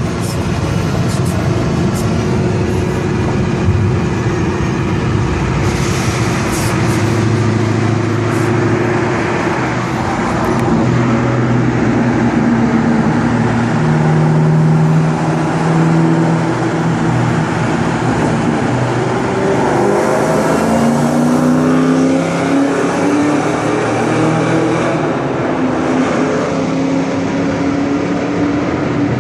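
Car engine driven hard through a tunnel, its loud exhaust note climbing and stepping in pitch as it accelerates through the gears, with a clear rise about two-thirds of the way in. The tunnel walls make it echo.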